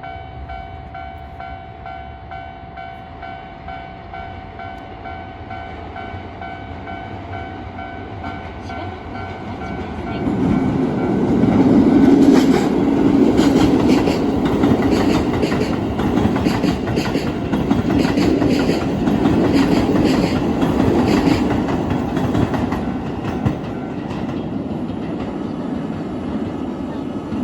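A level-crossing warning bell rings in a steady repeating pattern. About ten seconds in, a Keisei 3000 series electric commuter train rushes through the crossing with its wheels clacking over the rail joints. The train noise eases off near the end.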